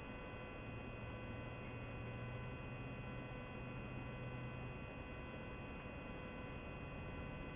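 Faint steady electrical hum and whine from the in-car camera recording, with several thin high tones over a low hum. The low hum is a little stronger for the first few seconds.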